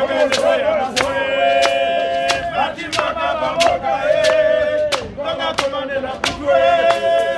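A group of voices chanting and singing long held notes together over a steady beat of sharp drum strikes, about two a second.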